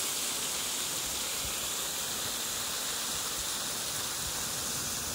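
Steady rushing and splashing of a small waterfall, a thin curtain of water dropping about 15 to 20 feet over a rock ledge into a pool.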